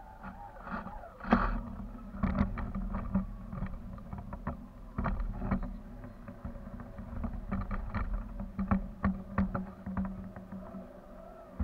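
Camera rig swinging under a kite line, with irregular clicks and knocks over a steady low rumble of wind on the microphone.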